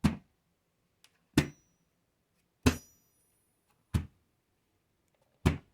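Plastic ammo boxes being handled: five sharp knocks about a second and a half apart, the third with a brief metallic ring.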